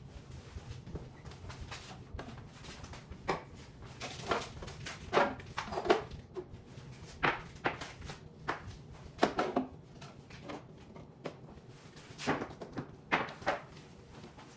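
Food containers, jars and bottles being taken out of a fridge and set down on a counter: irregular knocks, clinks and clatter, busiest in the middle.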